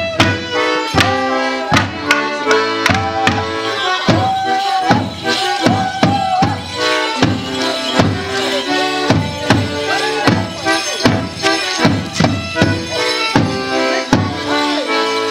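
Border Morris band playing a folk dance tune: a sustained squeezebox-like melody over a steady beat of about two to three strikes a second from a drum and clacking wooden Morris sticks.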